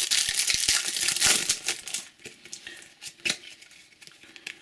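Crinkling of foil trading-card pack wrappers for about two seconds, then quieter, with a few light clicks of cards being handled.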